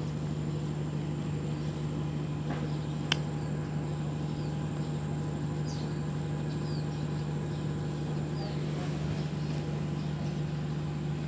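A single sharp click about three seconds in, the plastic cable connector of a solar LED street light snapping together, over a steady low hum. A few faint, short bird chirps come later.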